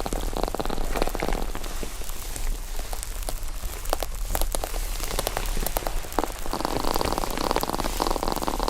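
Foam slime being squeezed and pressed by hand, giving a dense run of small cracking and popping sounds, busier and louder in stretches near the start and toward the end.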